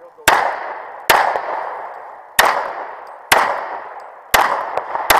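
Semi-automatic pistol firing six shots about a second apart, the last two closer together, each with an echo that dies away before the next.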